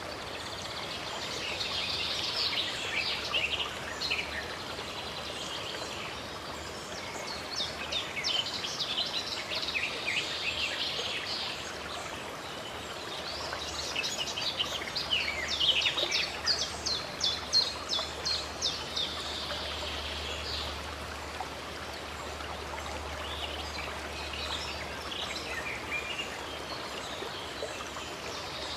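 Steady rush of running stream water with songbirds singing in several bursts of quick chirps and trills, the loudest a fast run of repeated notes a little past the middle.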